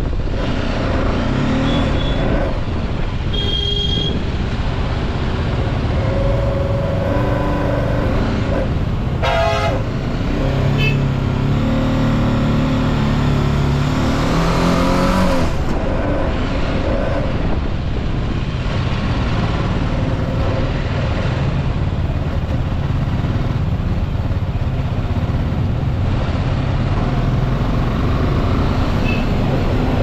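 BMW G 310 GS motorcycle's single-cylinder engine running on the road, its note climbing through the middle and then dropping sharply. A vehicle horn honks briefly a few seconds in and again, a little longer, about nine seconds in.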